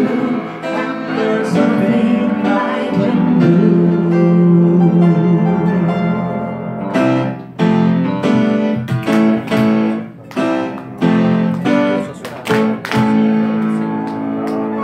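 Live song on a Yamaha electric keyboard in its piano voice with singing: long sung notes held over keyboard chords at first, then from about seven seconds in a run of repeated, separately struck chords with short gaps between them, as the song nears its close.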